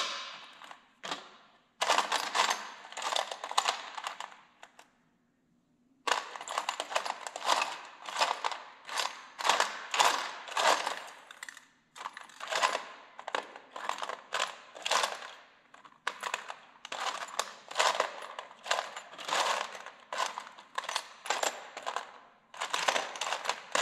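Small metal carburetor parts clinking and rattling against each other and a metal parts box as a hand sifts through them: quick runs of clinks, with a short pause about five seconds in.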